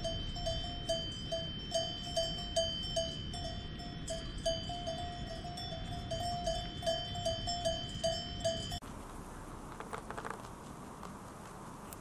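Livestock bells, such as cowbells on grazing animals, clanking in a continuous uneven jangle of ringing strikes, about two to three a second. The bells stop abruptly about nine seconds in, leaving a quieter hiss with a few faint clicks.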